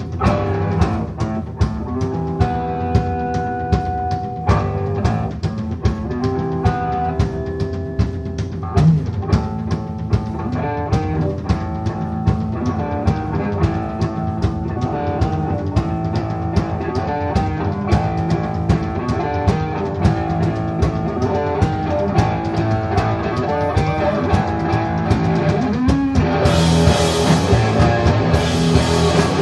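Stoner rock band playing live, instrumental: electric guitar over a steady beat on the drum kit, with cymbals crashing in near the end.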